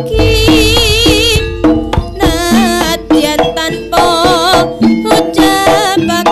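Javanese jaranan ensemble playing an instrumental passage: a wavering lead melody with strong vibrato over steady kendang hand-drum strokes, with a deep gong sounding just after the start.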